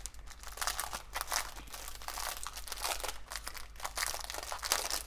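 Clear plastic bags crinkling and crackling as they are handled and opened by hand. The bag holds a bundle of smaller plastic bags of diamond-painting drills.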